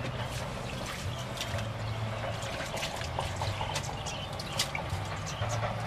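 Water splashing and dripping in a steel bowl as leafy greens are washed by hand, in many small irregular splashes and drips. A steady low hum runs underneath.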